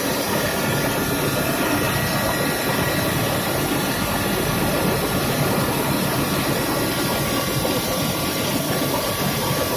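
DZ70 twin-screw snack extruder line running: a steady machine hum and hiss with a few faint, steady high tones.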